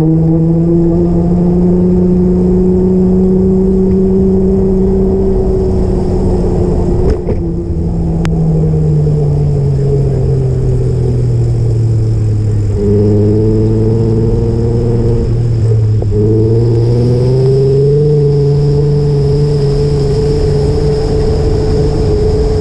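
A vehicle engine running close to the microphone, its pitch rising and falling slowly as it speeds up and slows down. A short knock about seven seconds in.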